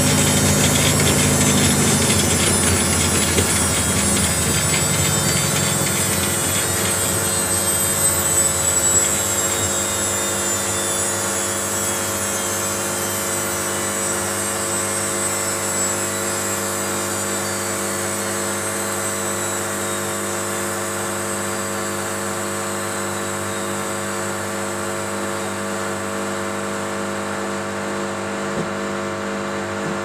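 Washing machine drum spinning down: a motor whir with a steady hum and a high whine that slowly falls in pitch, getting gradually quieter.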